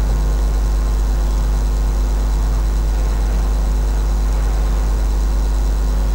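A steady low hum, unchanging in level, with a few faint steady tones above it.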